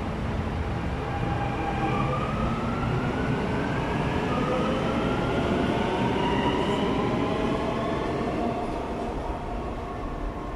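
Electric metro train pulling out of the station, its motors whining and rising in pitch as it accelerates over a steady rumble of the train, easing off near the end.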